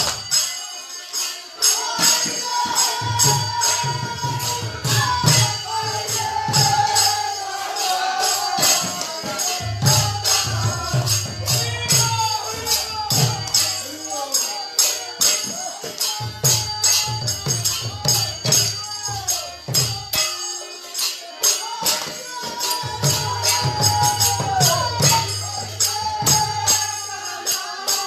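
Village kirtan: a group of villagers singing a devotional chant together. Hand cymbals clash in a fast, steady rhythm, and a deep drum comes in and out in runs of a few seconds.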